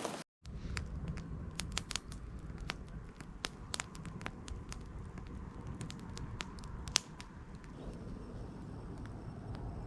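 Wood campfire crackling: irregular sharp pops and snaps over a low steady rumble, with one louder pop about seven seconds in.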